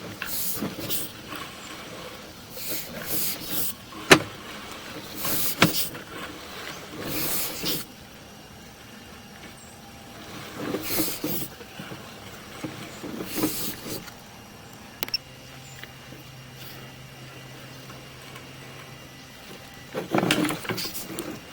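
Sewer inspection camera's push cable being fed by hand into the drain line: repeated scraping rushes of noise, two sharp clicks about four and five and a half seconds in, and a low steady hum for a few seconds near the end.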